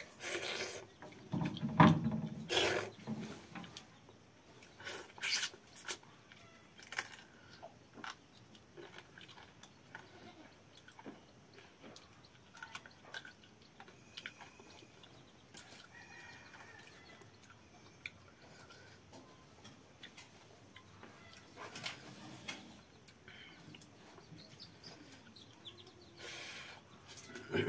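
A man eating fermented water rice and curry by hand: wet chewing and lip-smacking in short, uneven smacks, loudest in the first few seconds and again near the end.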